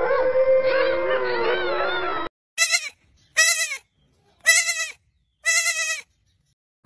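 Overlapping wolf howls with wavering pitch that cut off abruptly about two seconds in. Then a giant panda bleats four times, each call short, rising then falling in pitch, about a second apart.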